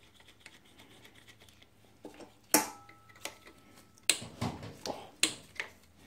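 Metal hand tools clinking and tapping on the 8 mm bolts of the plastic guard over a motorcycle's rear brake caliper. The sharpest clink comes about two and a half seconds in and rings briefly, followed by a cluster of taps and knocks a second and a half later.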